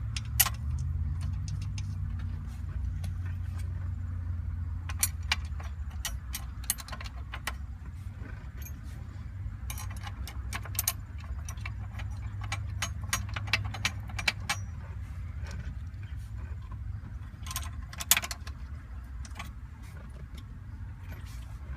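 Hand tools clicking and clinking on metal as screws are driven in to fasten the steering column sensor plate, in scattered clusters of sharp clicks over a steady low hum.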